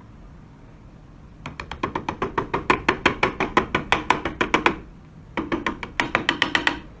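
Two runs of rapid, evenly spaced clicks, about nine a second: the first lasts about three seconds, and a shorter one follows after a brief pause.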